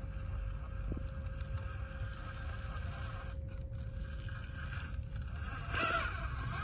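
Electric drivetrain of a Capo CD1582X Queen RC rock crawler whining steadily as it creeps over a boulder, getting louder about six seconds in, with a low rumble underneath.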